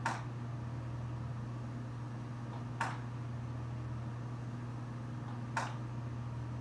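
Steady low hum of a running computer, with three short soft ticks evenly spaced about three seconds apart.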